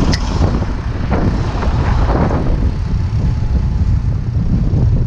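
Heavy diesel truck engine running with a steady low rumble, with a short sharp click just at the start.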